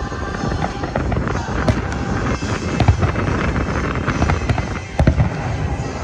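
Fireworks going off: a continuous crackling din with several sharp booms, the loudest two in quick succession near the end.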